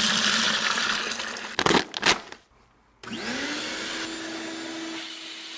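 Shop vac motor running with a loud rushing of air and two sharp knocks. After a brief break, the shop vac switches on again, its pitch rising as the motor spins up to a steady whine over the rush of suction.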